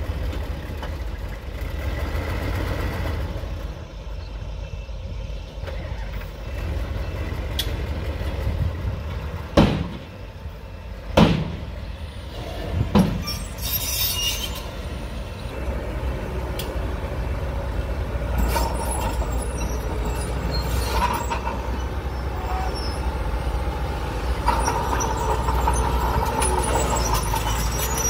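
Diesel earthmoving machinery, a bulldozer and a dump truck, running steadily. Near the middle come three loud bangs about a second and a half apart, then a short hiss of air.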